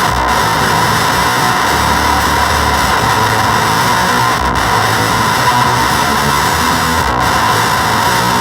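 Electric guitar played through a Gremlin Machine Shop Avedissian octave fuzz pedal: a heavily fuzzed, distorted tone at a steady loud level.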